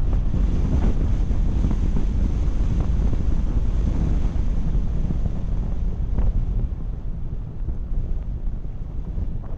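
Steady low rumble of wind noise on the microphone, with no clear tone or rhythm in it.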